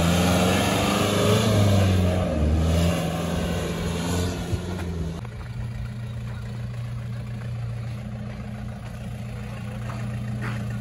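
Off-road 4x4 jeep's engine revving, its pitch rising and falling as it drives over dirt. About five seconds in, the sound changes abruptly to a quieter, steady engine idle.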